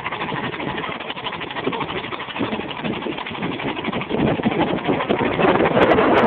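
Rover coupe's four-cylinder engine running roughly on only two cylinders, its other two spark plugs removed, revved hard and getting louder from about four seconds in.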